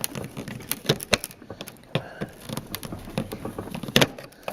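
Irregular clicks and taps of small plastic and metal parts being pried and worked apart by hand, as a car's bulb failure relay is disassembled, with one sharper snap about four seconds in.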